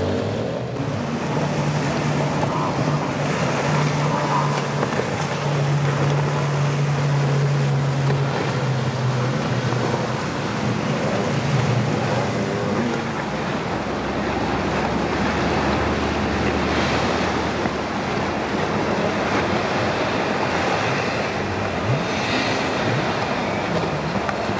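Powerboats running at speed through choppy inlet water, one after another. A steady engine drone is clearest in the first ten seconds, and a lower engine note comes later, over the rush and splash of waves and wakes.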